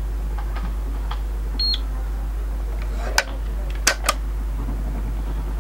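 ANRI-01-02 Sosna Geiger-counter dosimeter clicking at an irregular rate, each click a detected particle, with one short high beep about one and a half seconds in. A few sharp knocks a little past the middle come from the lens being handled on the table.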